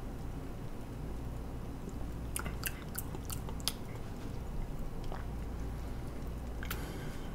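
Wet mouth clicks and lip smacks of someone tasting a soda, a cluster of them about two to four seconds in, then a click and a short slurp as he sips from the cup near the end, over a steady low hum.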